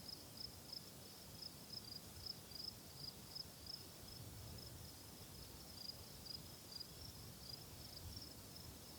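Faint insect chirping at a steady high pitch, about three chirps a second, over quiet outdoor background.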